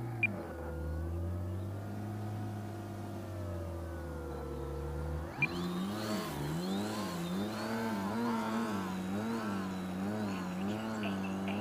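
Edge 540T RC aerobatic plane's motor and propeller droning, the pitch gliding slowly up and down. After a sharp click about five seconds in, the drone is higher and wavers up and down rhythmically, about one and a half times a second.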